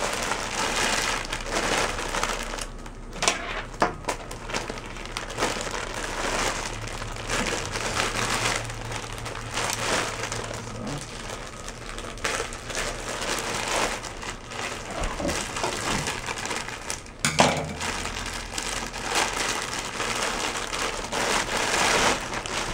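Plastic packaging crinkling and rustling continuously as it is handled and pulled off a puppet, with irregular small crackles and a sharper crackle about three-quarters of the way through.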